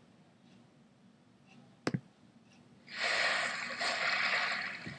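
Sound effects over the opening title cards: a single sharp click about two seconds in, then a loud hissing rush of noise from about three seconds in.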